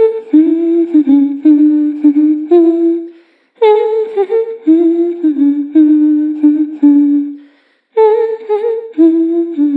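A young girl's voice humming a creepy, lullaby-like tune. The same short phrase comes three times, each starting on a higher note and stepping down to a lower one, with brief pauses between phrases.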